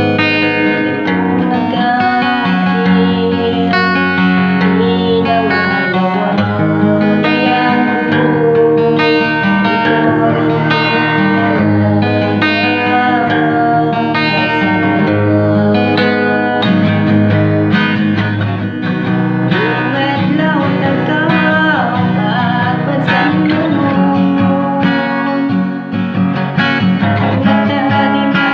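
Guitar-led music: plucked guitar lines over a full accompaniment, with some singing.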